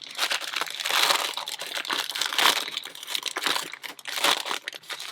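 Crinkly packaging being handled while a parcel is unpacked: continuous irregular crinkling and rustling with sharper crackles.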